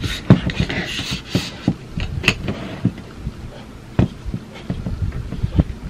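Irregular plastic clicks and knocks from a lightweight camera tripod being handled, its head and fittings worked while trying to raise it, with a few sharper knocks spread through.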